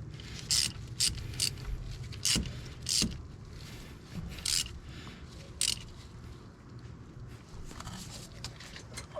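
Hand-tool work on metal: a series of short, irregular scrapes and clicks over a low steady hum.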